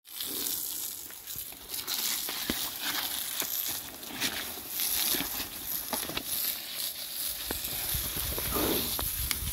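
Garden hose spraying water onto a young rhino lying in mud: a steady hiss of spray with splashing and patter on its hide and the wet ground, and scattered sharp clicks. A low rumble joins about seven seconds in.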